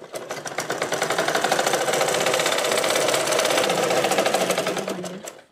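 Sewing machine stitching a seam through fabric, with a rapid, even rhythm: it picks up speed over the first second, runs steadily, then slows and stops near the end.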